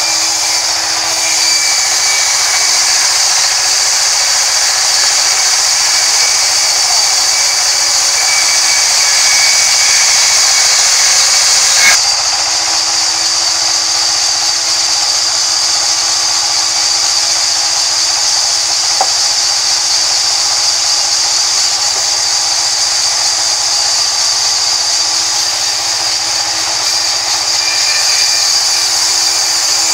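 A sawmill's vertical band saw runs steadily while its blade cuts lengthwise through a crooked rain tree log, a loud continuous high whine and hiss. One sharp click comes partway through.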